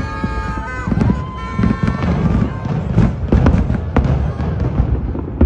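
A fireworks display: many sharp bangs at uneven intervals over a continuous low rumble.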